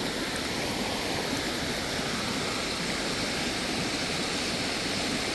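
Rain-swollen mountain creek rushing fast over rocks: a steady, even roar of white water.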